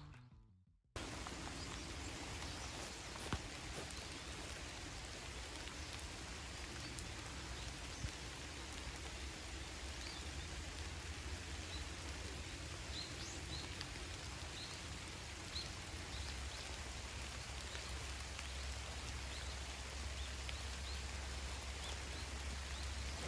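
Steady rain falling, with a few louder drops ticking now and then. It begins about a second in, after a brief silence.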